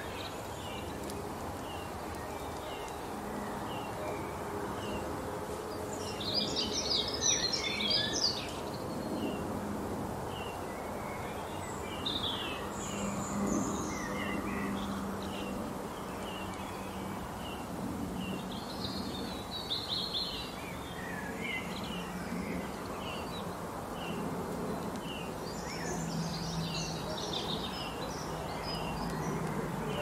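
Songbirds singing over steady background noise: short high chirps repeat throughout, with fuller song phrases breaking in four times.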